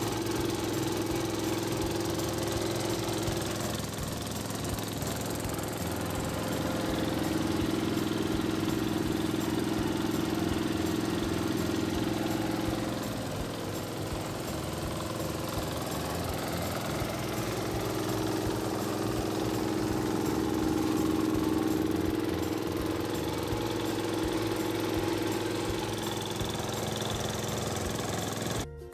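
Small diesel engine running steadily, belt-driving a flat-die pellet mill that is pressing feed meal into pellets. A steady droning tone strengthens and fades a few times as the mill works.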